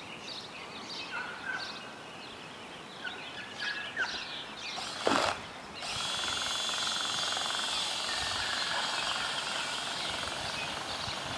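Birds chirping over a light outdoor hiss. About six seconds in, a steady high whine with hiss sets in and holds: the electric motor of a drill-powered boat paddle running.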